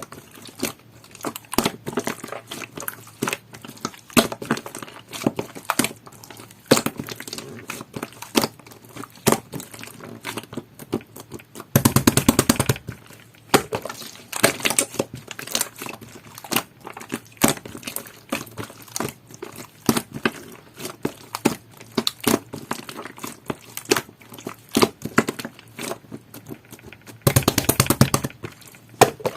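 Hands squishing, pressing and stretching a clear slime topped with rainbow clay, making sticky popping and crackling clicks with a jelly-like feel. About twelve seconds in and again near the end comes a denser run of rapid pops.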